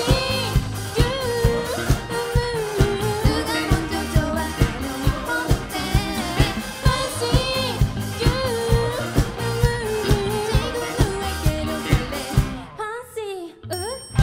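A live band playing a pop song, with a lead vocal over a steady drumbeat of about two hits a second. Near the end the band thins out, leaving a few sliding lines.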